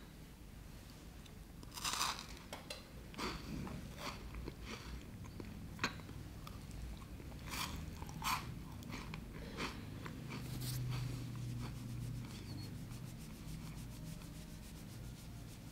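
Chewing of dragon's beard candy: a dozen or so separate crisp crunches over the first ten seconds, fading to faint quick ticks near the end.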